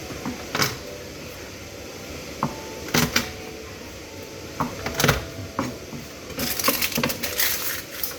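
Kitchen clatter of utensils and dishes being handled: a few separate knocks, then a quick run of clinks and rattles near the end.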